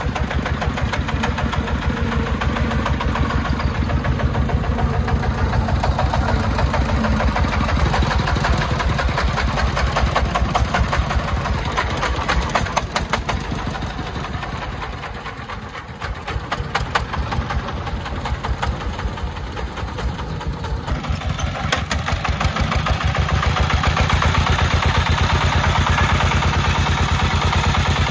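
Three-wheeled công nông truck's diesel engine running with a rapid, even firing knock. It eases off briefly about halfway through and runs louder over the last few seconds.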